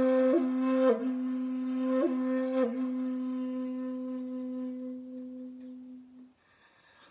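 A long 2.7-shaku bamboo shakuhachi holds one low note, broken by four quick grace-note flicks in the first three seconds. The note then slowly fades and stops about six seconds in.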